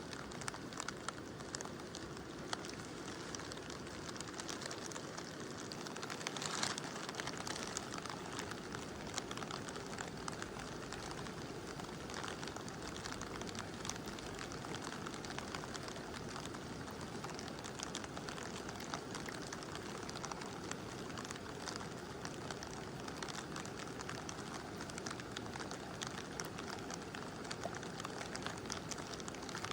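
Mountain river flowing steadily under gentle rain, a continuous rushing wash with raindrops ticking and pattering throughout. One louder drop or splash stands out about six seconds in.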